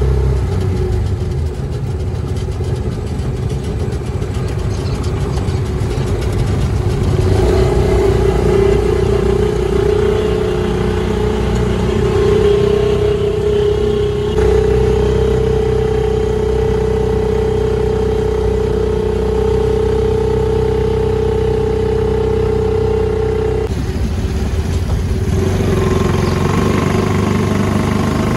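Motorcycle rickshaw (chingchi) engine running on the move, heard from on board. Its steady note rises in pitch a couple of times and drops suddenly about three-quarters of the way through.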